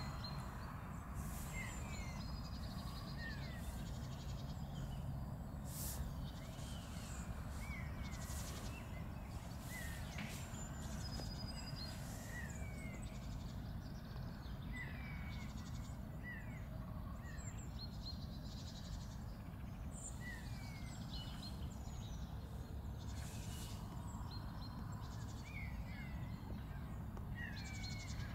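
Small birds chirping: short falling chirps every second or two, with a few higher thin whistles, over steady low background noise.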